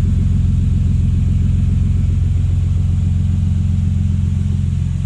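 Toyota 2JZ-GTE twin-turbo straight-six running steadily through a TOM'S exhaust, a low bassy rumble with no revving. The level eases slightly near the end.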